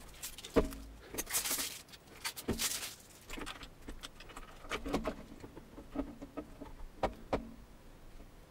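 Protective plastic film being peeled and crinkled off a pair of small plastic desktop speakers, in crackly bursts over the first few seconds. Then scattered clicks and knocks as the speakers and their cable are handled and set down on a wooden desk.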